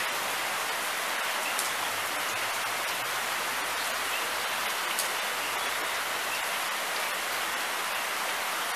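Steady rain falling, an even hiss of rain on surfaces, with a couple of single drop clicks.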